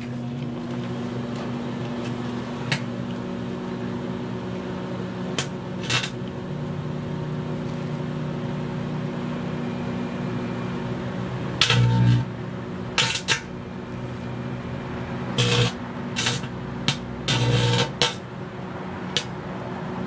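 Microwave oven running with a steady mains hum from its magnetron transformer, and a few faint clicks. From about halfway on come several short, loud buzzing crackles, sparks arcing off the pins of an Intel T7400 CPU inside.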